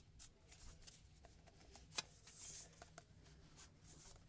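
Handling of a cardboard sleeve as it is slid off a wooden knife box: quiet scraping and rustling with scattered light clicks and taps. There is one sharper click about two seconds in, followed by a short hiss of card sliding over wood.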